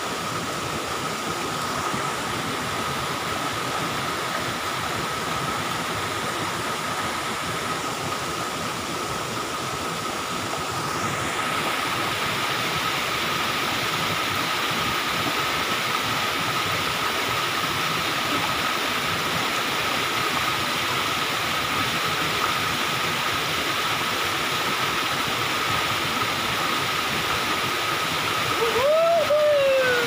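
Steady rush of a waterfall and stream pouring over rock, with a thin steady high whine over it; the rush grows a little louder and brighter about a third of the way in. Near the end a man gives a short rising-and-falling exclamation.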